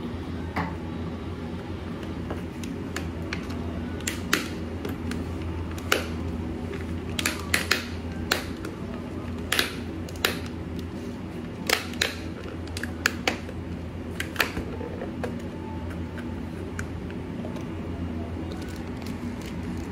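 Scattered sharp clicks and taps of birthday candles being handled and set on a cake, bunched in the middle stretch, over a steady low hum.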